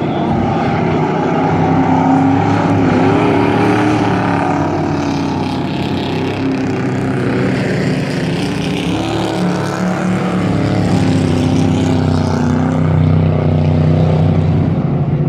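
Race trucks' engines running hard in a dirt-track race. The pitch rises and falls as the trucks accelerate and lift around the oval.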